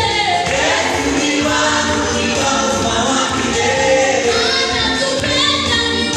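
Gospel worship music: a group of voices singing together as a choir, with instrumental backing.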